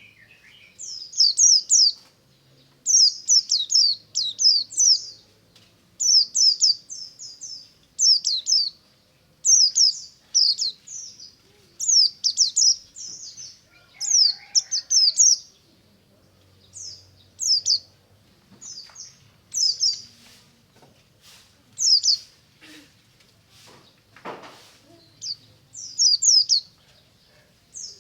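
Pleci (white-eye, buxtomi type) singing its wild-style 'ngalas' song: short, high chirping phrases of quick falling notes, repeated every second or two.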